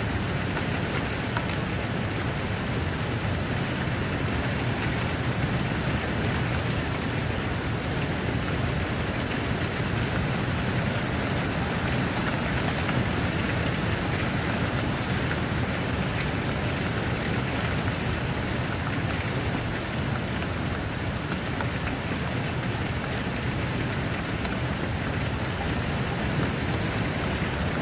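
Steady rain falling, an even hiss with fine ticks of individual drops.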